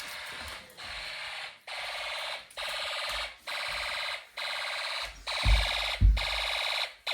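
Fire alarm horn sounding in pulses of about one a second, set off by a manual pull station that has just been pulled. Two low thumps come near the end.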